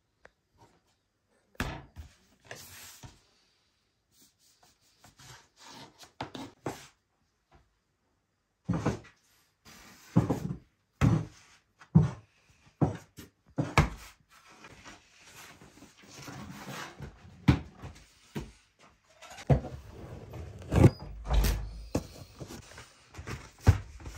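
Pieces of bread dough thudding down onto a wooden board and being pressed and rubbed by hand, in irregular knocks. The thuds come more often and more heavily in the second half.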